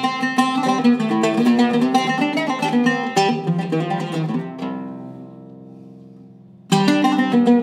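Zeryab oud with a cedar soundboard and Indian rosewood back, played in a quick run of plucked notes. About two-thirds in, one note is left ringing and fading for about two seconds, then the fast plucking starts again near the end.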